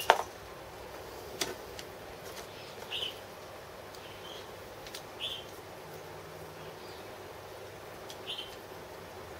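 A sharp metal click as a clamp on the workpiece is handled, with fainter clicks later on. About five short, high chirps of a small bird come at irregular intervals.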